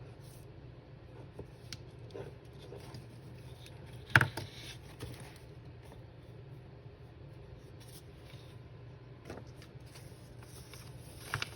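Paper and craft supplies handled on a tabletop: light rustling and small clicks, with one sharp tap about four seconds in, over a low steady hum.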